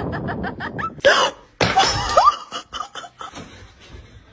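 A person laughing in a quick run of short rising bursts, followed by a couple of loud gasping vocal outbursts.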